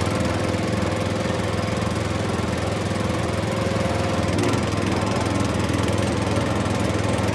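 Small electric motor and plastic gearbox of a toy bulldozer running steadily with a buzzing whir and fine gear rattle as it pushes a pile of dirt.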